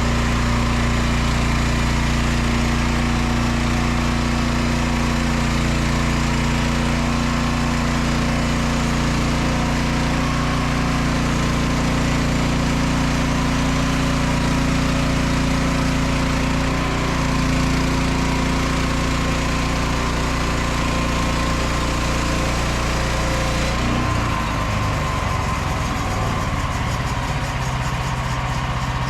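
Frontier OS27 portable sawmill's small engine running steadily. About three-quarters of the way through, its note changes and settles into a lower, steadier run, like an engine dropping to idle.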